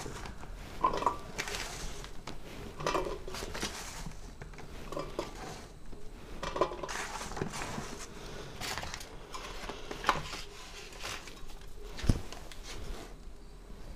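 Hard, sun-dried jolpai (Ceylon olives) dropped by the handful into a steel plate, knocking and clattering against the metal in irregular bursts, some with a brief metallic ring. A heavier single knock comes near the end.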